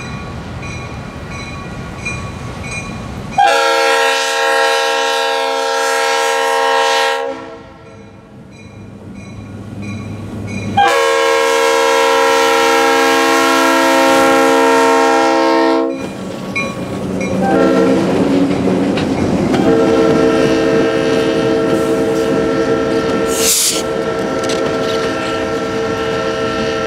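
Diesel freight locomotive's air horn sounding two long blasts as the train approaches, led by an EMD GP38-2. The locomotives then pass close by and the freight cars roll past with wheel clatter.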